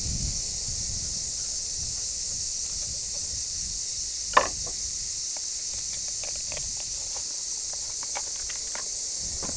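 Small crisp clicks and snaps of a knife cutting into a red pepper held in the hand, with one sharper snap about four seconds in, over a steady high hiss.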